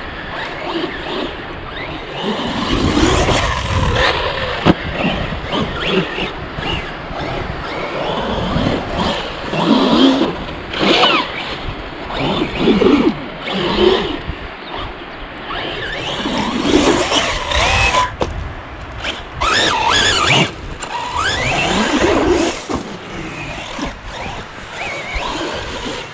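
Electric brushless motor and drivetrain of a Corally Asuga 6S RC buggy whining as it is driven over sand, its pitch rising and falling again and again with the throttle. Wind rumbles on the microphone underneath.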